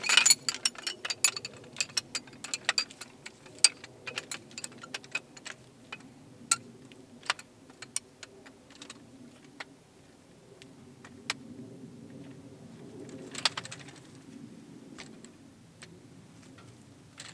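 Irregular sharp clicks and clinks, many at first and sparser later, over a low steady hum, with a brief rushing noise about 13 seconds in.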